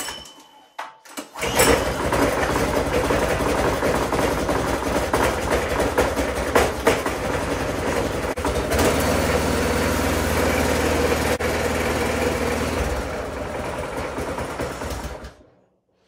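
Brand-new Predator 212cc single-cylinder OHV engine with its stock muffler, pull-started on choke and catching about a second and a half in. It runs steadily, its sound changes about nine seconds in, and it stops abruptly near the end.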